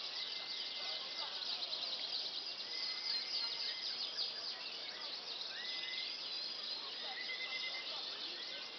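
Canary singing a continuous song of fast trills and chirps, broken by several short held whistled notes.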